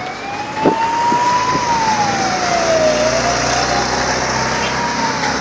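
Fire engine siren wailing, its pitch slowly rising and falling, over steady traffic and engine noise. A short sharp knock sounds less than a second in.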